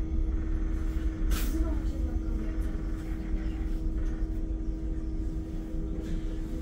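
Interior of a Solaris Urbino 9 IV LE electric bus standing still: a steady electrical hum over a low rumble, with one short hiss of released air about one and a half seconds in.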